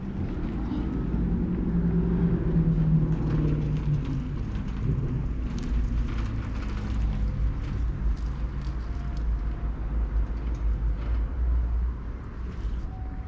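A car engine running close by, loudest and highest about two to four seconds in, then settling to a steadier, lower running sound.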